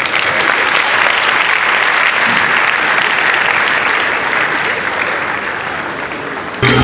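Congregation clapping steadily in applause, with band music starting abruptly just before the end.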